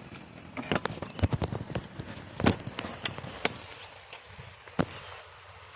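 Irregular sharp clicks and knocks close to the microphone, a dozen or so over about three seconds and one more near the end: handling noise around the recorder, with the scooter's engine not running.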